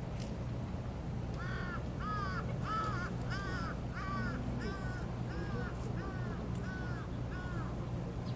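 A crow cawing in a long run of about a dozen short calls, roughly two a second, growing fainter toward the end, over a low steady hum.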